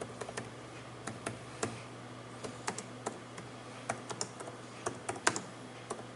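Keys on the Compaq 15 S103-TX notebook's plastic keyboard being pressed one after another, giving irregular sharp clicks in small clusters with short pauses between.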